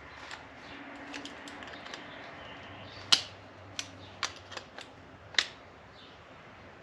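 Hand tools working a seized part loose from a rusty turn signal: a few faint ticks, then five sharp clicks over about two seconds, the first the loudest.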